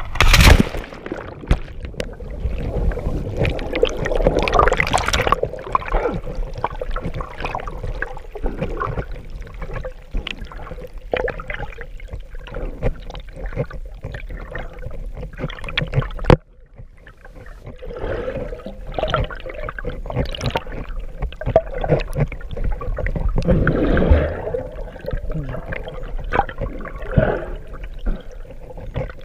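A splash about half a second in as a camera goes under the surface, then underwater water movement and bubbling, with small crackles and clicks from bubbles against the housing. The noise swells and fades as the swimmer moves and briefly drops out about 16 seconds in.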